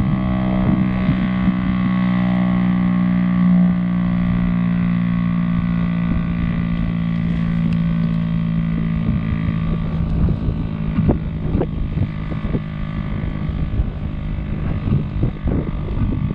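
Federal Signal STL-10 warning siren sounding a low, steady drone of several tones together. In the second half the drone weakens while wind gusts buffet the microphone.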